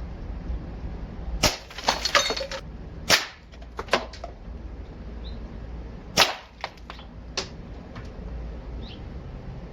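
Airgun shots: about eight sharp cracks fired at an uneven pace, some close together, the loudest about six seconds in, mixed with the smack of pellets hitting soft food targets.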